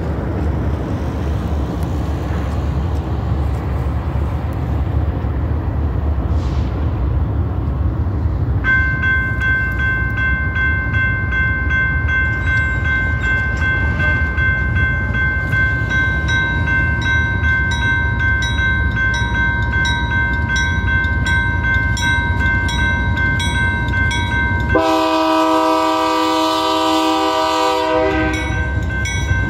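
Railroad grade-crossing warning bell starts ringing about a third of the way in and keeps ringing, over a steady low rumble. Near the end an approaching train's horn sounds one long blast of about three seconds.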